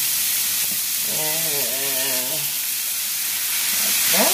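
Thin-sliced raw steak and sautéed peppers and onions sizzling steadily on a hot flat-top griddle. A short hum, like a voice, sounds about a second in.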